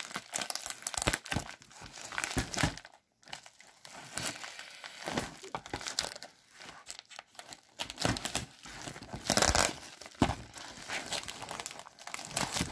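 Scissors cutting through a postal package, with the crinkling and rustling of the packaging as it is handled and pulled apart in irregular bursts.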